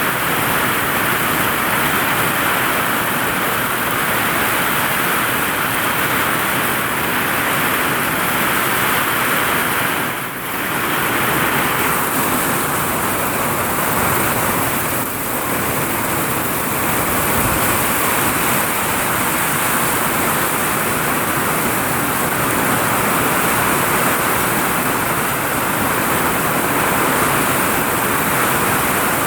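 Heavy rain pouring onto a vinyl roof, a steady dense hiss that briefly eases about ten seconds in and again around fifteen seconds in.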